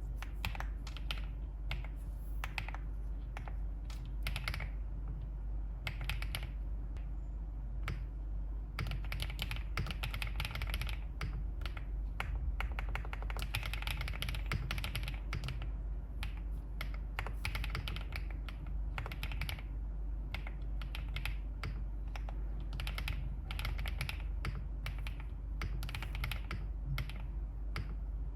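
Continuous typing on a custom mechanical keyboard, a Wave75 with an aluminium case and 青竹 (green bamboo) switches: steady streams of keystroke clacks in uneven runs, faster in places.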